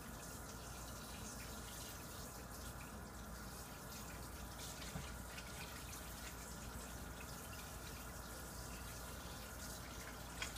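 Water running steadily from a tap while hands are washed under it.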